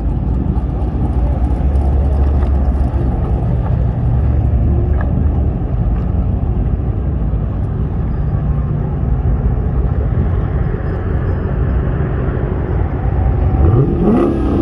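Car engines rumbling low and steady as cars roll in, with one engine revving up near the end.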